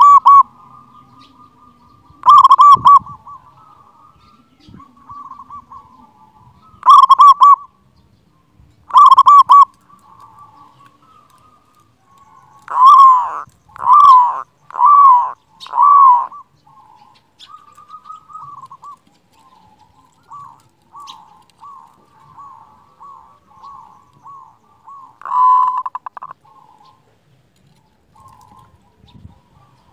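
Local zebra dove (perkutut) with a big voice cooing: short clusters of rapid staccato coos, then four loud, separate coos about a second apart midway, followed by softer quick coos with one louder call near the end.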